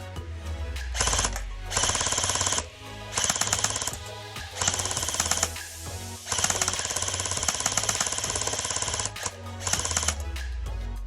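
Battery-powered electric M4 BB gun firing on full auto in about six bursts of rapid shots, the longest lasting about three seconds, over background music.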